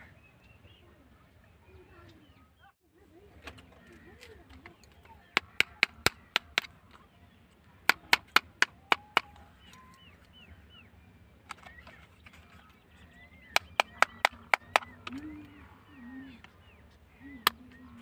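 Three quick runs of sharp knocks, five or six strikes each, then one more near the end, over faint chirping in the background.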